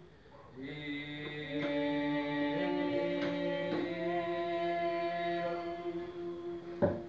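Voices chanting a traditional Rapa Nui chant in long held notes that step from pitch to pitch, starting after a short pause. A sharp knock near the end.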